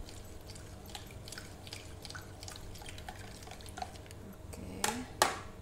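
Spoon stirring a watery garlic and spice seasoning mixture in a plastic bowl, with small liquid splashes and light clicks. Near the end there are two louder knocks, about a third of a second apart.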